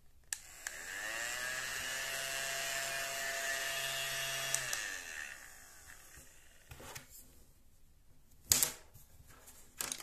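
ODISTAR mini desktop vacuum cleaner switched on with a click, its small motor whirring up in pitch, running steadily for about four seconds, then winding down as it is switched off. After that come a few knocks, the loudest a sharp one a little before the end, as the vacuum is handled and set down on the table.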